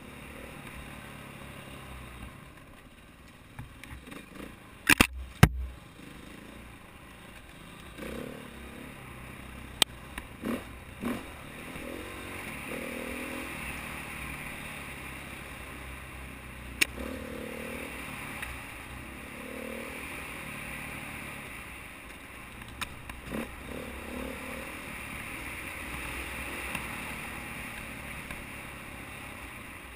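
KTM 450 XC-W dirt bike's single-cylinder four-stroke engine revving and easing off over and over, under steady wind and ride noise. Sharp knocks and clatter come through at intervals as the bike jolts over the rough trail, the loudest a pair about five seconds in.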